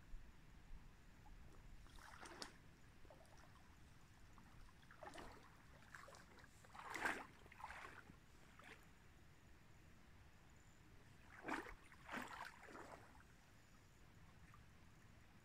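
Soft splashes and sloshes of river water around a person's legs as he wades in shallow water, coming in small clusters: about two seconds in, several between five and nine seconds, and again around eleven to thirteen seconds.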